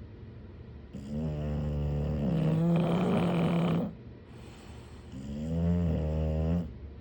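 English bulldog snoring: two long, pitched snoring breaths. The first starts about a second in and lasts nearly three seconds; the second, shorter one starts about five seconds in.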